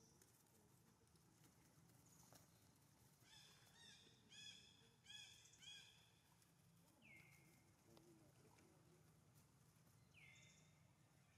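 Faint high-pitched squeals of young long-tailed macaques at play: a quick run of about four squeals a few seconds in, then two single falling squeals later on.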